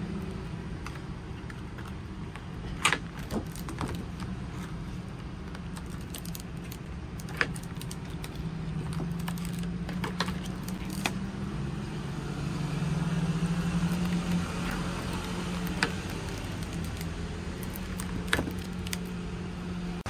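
Indoor room tone: a steady low hum with scattered sharp clicks and clinks, about eight in all.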